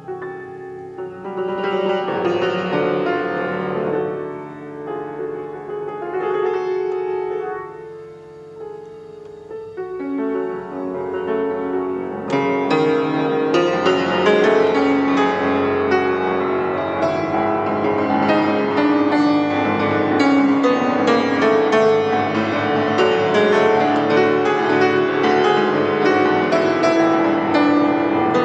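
Solo grand piano improvisation. It begins with soft, sparse phrases that swell and fade, then a little before halfway turns louder and busier, with rapid notes spreading into the upper register.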